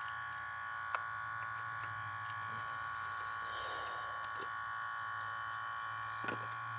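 Steady electrical buzz, a high whine of several steady tones over a low hum, from the equipment discharging a battery pack at about 8 amps. A couple of faint clicks.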